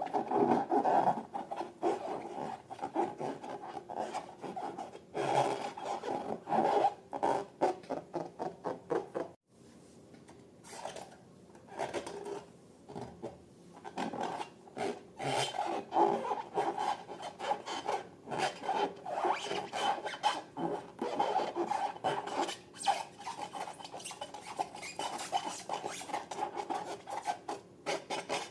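Sticky slime being squished and mixed, making rapid wet crackles and clicks, with a brief break about a third of the way through.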